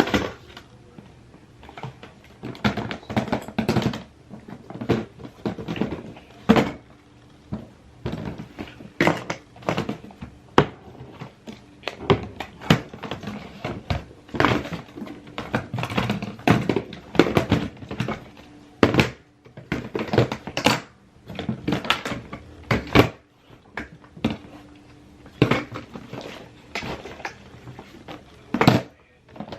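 Irregular series of knocks, taps and thuds, several a second at times with short pauses between.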